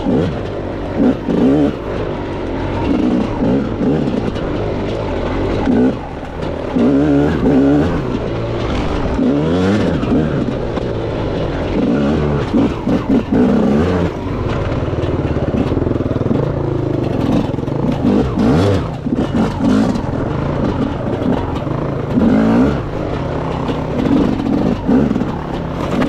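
Enduro dirt bike engine on a trail ride, its pitch climbing and falling again and again as the throttle is opened and closed, with short knocks here and there from the bike over rough ground.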